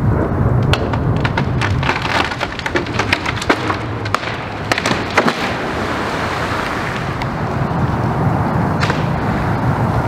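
A tree branch cracking and snapping under the weight of a roosting flock of waterbirds, a quick run of sharp cracks over the first five seconds as the birds flap off the tree. A steady low rumble runs underneath.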